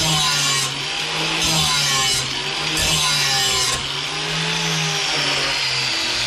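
Electric lawn mower blade sharpener (GSTP Model 5005) running, its aggressive carbide grinding wheel grinding the edge of a steel mower blade. A steady motor hum sits under a gritty grinding hiss that swells with each pass of the blade about every second and a half, easing off after about four seconds.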